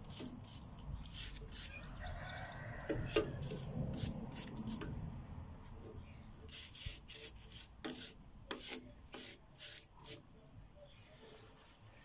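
Hand sanding of a metal flower stand: a run of short, irregular rasping strokes, close together at first and more spaced out in the second half.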